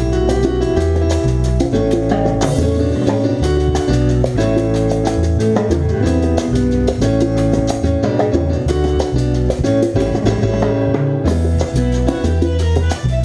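Live salsa band playing: a steady, moving bass line and keyboard under timbales and hand percussion.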